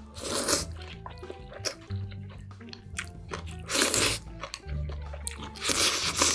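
Close-up crunchy bites and chewing of food, with three loud crunches: about half a second in, around four seconds, and near the end. Background music with a low bass line plays underneath.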